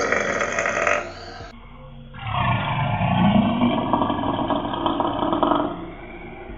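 A belch that ends about a second and a half in. After a short gap, a belch played back slowed down follows: a long, deep, rough rumble lasting about four seconds.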